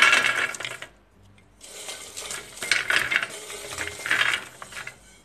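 Freshly fried shakarpare, crisp pieces of maida dough, clatter and rattle as they are tipped from a stainless-steel bowl onto a steel plate and turned by hand. There is a short burst at the start, then a longer run of rattling from about one and a half seconds in. The hard, dry clatter is the sign that they have fried crisp (khasta).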